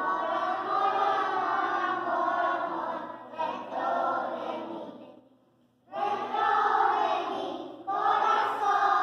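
A group of young children singing together as a choir, breaking off for about half a second a little past the middle before starting the next line.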